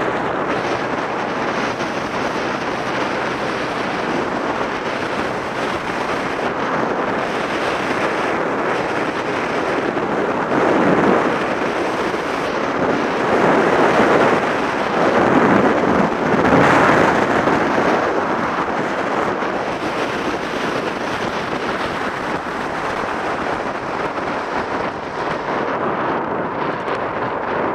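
Wind rushing and buffeting on the microphone of a camera on a moving motor scooter, with road and engine noise beneath it. The buffeting swells louder for a stretch partway through.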